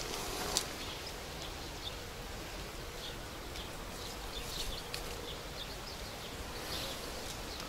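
A flying insect buzzing steadily, bee- or fly-like, with a few light rustles of leaves and twigs as fruit is pulled from a nectarine tree.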